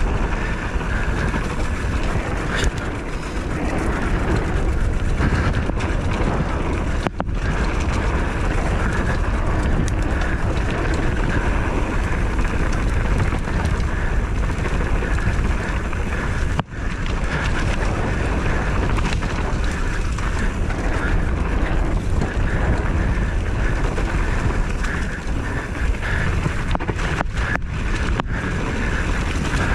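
Steady wind rushing over the microphone of a moving vehicle, with the vehicle's running noise underneath. The sound cuts out very briefly twice.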